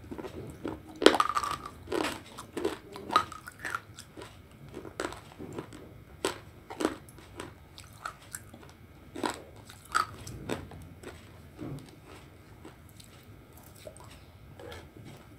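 Close-up biting and crunching of brittle dry clay pieces: sharp cracks about once a second with chewing between them, loudest through the first ten seconds and sparser near the end.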